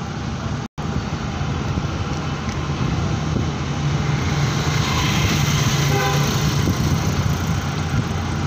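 Steady engine and road noise of a vehicle driving along a street, with a strong low hum. The sound cuts out completely for an instant under a second in. A faint pitched tone is heard about five to six seconds in.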